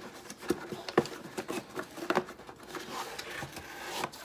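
Handling of a cardboard mailer box: a series of light knocks and taps about half a second apart, with soft rustling in between.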